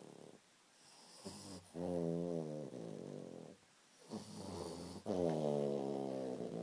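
Snoring: two long snores, each a pitched, wavering drone lasting about two to three seconds, with a short quiet breath between them.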